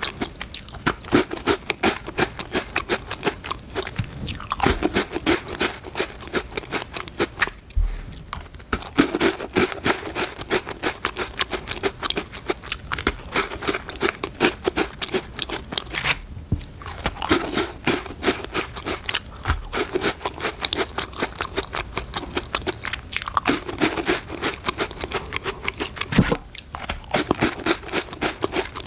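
Close-up crunching and chewing of crisp Danish butter cookies, with dense irregular crackles and brief pauses between bites.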